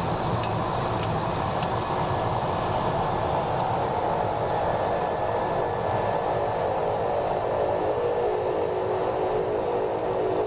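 Cockpit noise of a Cessna 208B Grand Caravan's single Pratt & Whitney Canada PT6 turboprop engine and propeller, running steadily. There are three faint ticks in the first two seconds, and a set of steady tones comes in near the end.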